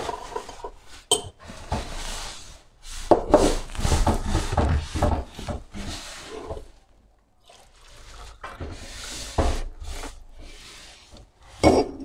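Metal teaspoon scraping miso paste out of a glass jar and stirring it in a ceramic cup, with irregular scrapes, clinks and knocks of the jar and cup handled on a wooden counter.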